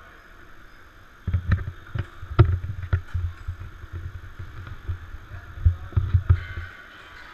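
Handling noise on the kart-mounted camera: a run of irregular low thuds and sharp knocks, as if the mount is bumped and the camera shifted. It starts about a second in and stops shortly before the end.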